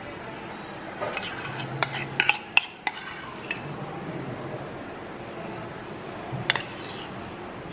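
A metal spoon clinking against dishes while spooning hollandaise sauce: a quick run of about six light clinks from about a second in, then a couple more near the end, over a faint low hum.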